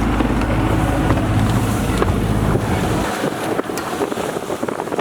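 Sailboat's inboard engine running steadily under heavy wind noise on the microphone and the rush and slap of waves against the hull. About three seconds in, the engine sound cuts off abruptly, leaving the wind and water.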